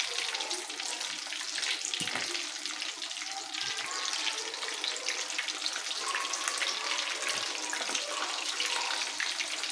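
Egg-coated chicken drumsticks deep-frying in hot oil: a steady, hissing sizzle of bubbling oil, while the pieces are turned in the pan with a slotted spatula.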